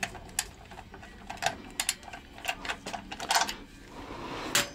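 Irregular metallic clicks and taps of hand tools, a wrench and socket, being worked on a motorcycle engine mounting bolt whose head has rounded off, with a short scrape near the end.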